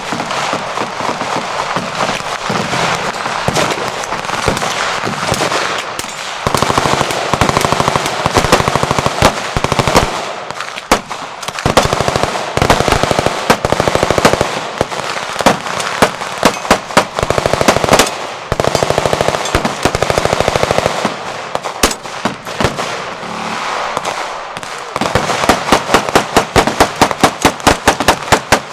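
Machine-gun fire: long strings of rapid automatic shots, densely packed throughout. Near the end comes an even string of loud shots at about six a second.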